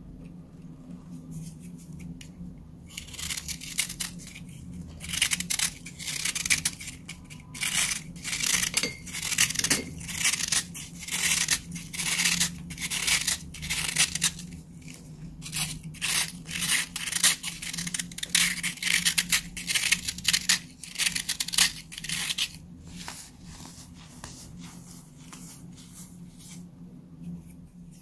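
A knife blade shaving a hand-held block of dried baking soda: a fast run of crisp, crunchy scraping strokes, starting about three seconds in and stopping a few seconds before the end.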